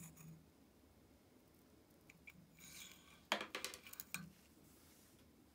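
Steel tweezers scraping and clicking against the rusty parts of an old ratcheting screwdriver's mechanism: a couple of small ticks, a short scrape, then a sharp metal click and a quick cluster of lighter clicks.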